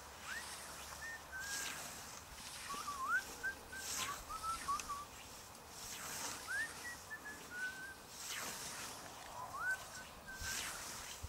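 A scythe swishing through long grass in steady strokes, about five of them, one every two seconds or so. Short chirping whistled notes from a bird are heard between the strokes.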